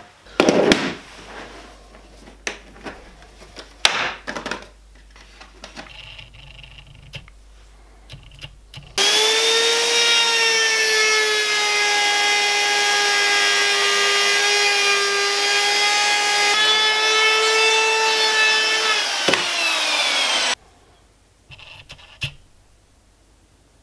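Wooden knocks and thumps as the cut-out disc of the tabletop is lifted out of its round hole. Then a handheld plunge router runs for about eleven seconds with a steady high whine, its bit cleaning up the edge of the circular hole in the pine tabletop, and cuts off suddenly, followed by a few light clicks.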